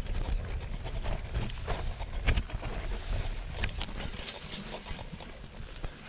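Road bicycle rattling and clunking over a rough dirt trail: irregular knocks and clicks from the frame and parts over bumps, with a low rumble that eases about two-thirds of the way through.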